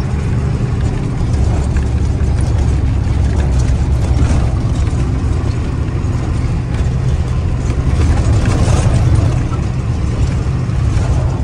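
Truck's diesel engine running steadily under way, heard from inside the cab: a loud, constant low drone with road noise over it.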